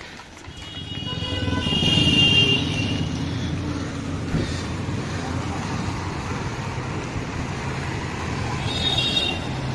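Busy city street traffic: a steady rumble of engines with vehicle horns honking, loudest about two seconds in and again near the end.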